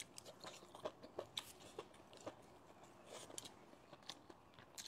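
Faint, close-miked chewing of a mouthful of stir-fried velvet antler mushrooms, with irregular crisp crunches a couple of times a second.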